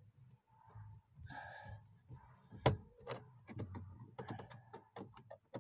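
Tools and parts being handled on a car door: a short scrape, one sharp knock a little before the middle, then a quick run of small clicks and taps, over a steady low hum.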